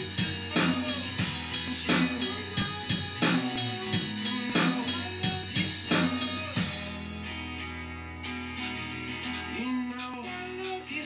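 Drum-kit app on a phone played by tapping the touchscreen: drum hits on a steady beat about every two-thirds of a second over a backing song with guitar. About two-thirds of the way through the heavy hits stop and only lighter, scattered hits continue over the music.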